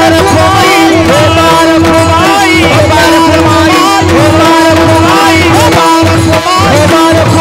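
Warkari devotional music: pakhawaj drumming in a steady rhythm under a wavering melody and a constant held drone note.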